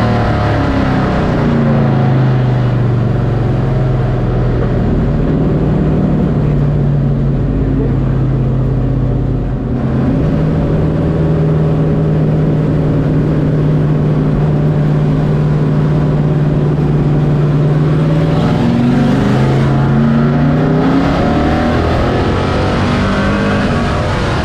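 Pro Truck race truck's engine at racing speed, heard from inside the cockpit. The revs shift about a second in, hold steady for most of the lap, then dip and climb again near the end.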